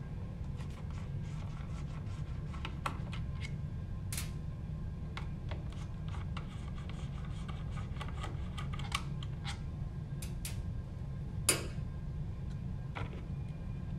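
Small Phillips screwdriver turning out screws from a metal printhead casing: scattered light clicks and scrapes, with a few sharper clicks, the loudest shortly before the end. A steady low hum runs underneath.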